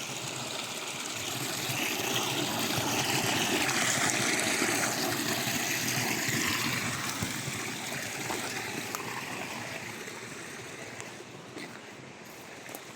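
River water running and trickling over rocks, swelling to its loudest about four seconds in and then slowly fading.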